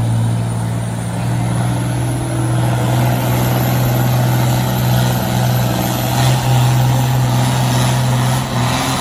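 Farm tractor's diesel engine running hard at steady high revs under heavy load while pulling a weight-transfer sled; the engine note dips briefly near the end.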